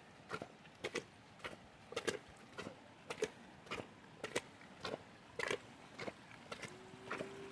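Footsteps wading through shallow floodwater in boots, a splash and slosh with each stride at about two steps a second. A brief steady tone sounds near the end.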